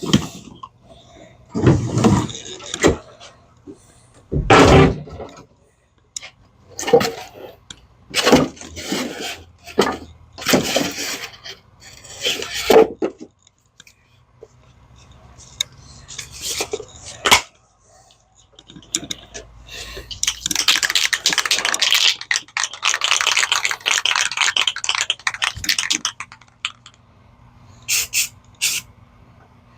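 Clattering and scraping of small parts and tools being handled on a workbench, with a steady hiss lasting about six seconds two-thirds of the way in and a few sharp clicks near the end.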